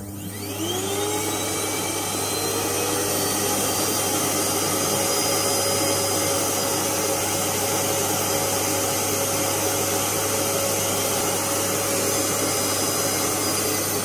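AEG JetMaxx AJM6813HF canister vacuum cleaner with a 2200 W motor, switched on and spinning up with a rising whine in the first second. It then runs steadily at full power, a loud rush of air with a high whine, measured at 91 dB(A).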